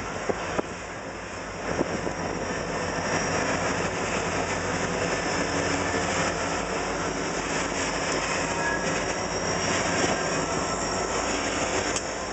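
Buffalo & Pittsburgh Railroad diesel-electric locomotives rolling slowly past close by with their engines running steadily. The sound swells about two seconds in as the units come alongside.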